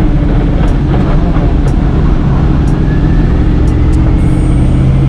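Car engine running loud and hard under load, a steady engine note with dense noise around it.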